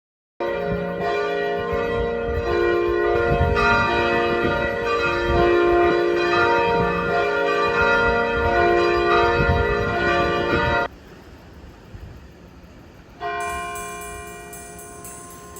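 Church bells ringing, several bells struck in overlapping turns over a low background noise, cutting off abruptly about eleven seconds in. A couple of seconds later a single clear ringing tone sounds and slowly fades.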